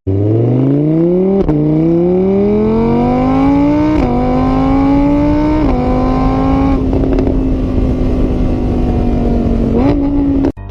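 Vehicle engine accelerating, its pitch rising in steps with three drops like gear changes. It then runs at a steady pitch and cuts off abruptly near the end.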